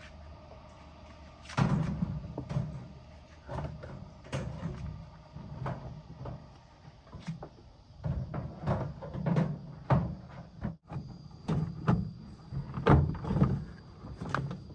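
Irregular knocks and clunks of hard parts being handled and set down, a few to several a second. A low steady hum stops about a second and a half in.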